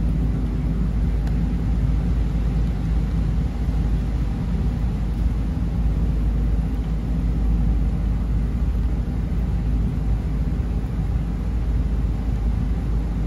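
A steady low rumble that holds at an even level throughout, with no distinct clicks or voices standing out.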